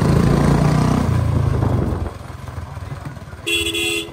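Royal Enfield Bullet 350's single-cylinder engine running on the move, loud at first and falling off about halfway through as the throttle is eased. Near the end a vehicle horn honks once, briefly.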